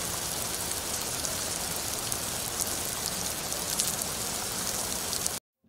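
Steady rain falling, an even hiss of many fine drops, which cuts off suddenly near the end.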